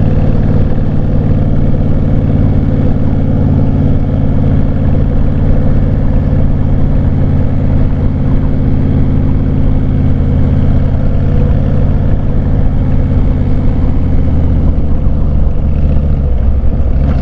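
Motorcycle engine running steadily while riding, a constant low engine note with a slight change in pitch near the end.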